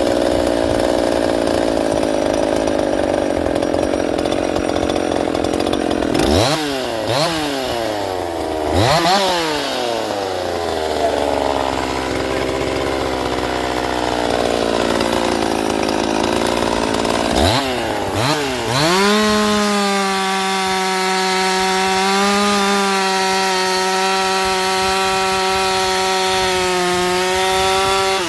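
Ported Husqvarna 50 two-stroke chainsaw, tuned rich for break-in, running while cutting wood. Its engine is blipped up and down several times in the middle, then holds a steady high speed through the last third, running cleanly now that an intake gasket air leak has been fixed.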